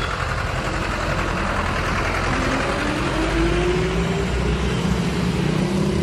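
A motor vehicle's engine running over a steady low rumble, its pitch rising twice.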